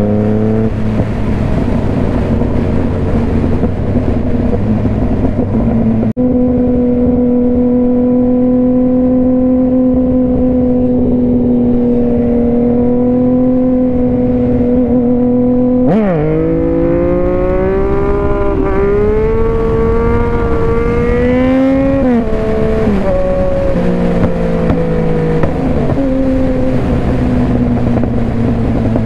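Onboard sound of a Yamaha FZ-09's three-cylinder engine at steady cruising revs under wind rush on the helmet microphone. About halfway through, the revs drop sharply and then climb as the bike accelerates. A gear change about two-thirds through brings the engine back to a lower, steady pitch.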